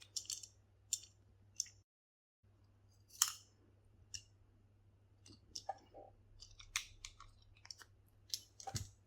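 Handling noise from a mechanical pencil and its packaging: scattered small clicks, taps and light rustles, with the sound cutting out completely for about half a second near two seconds in.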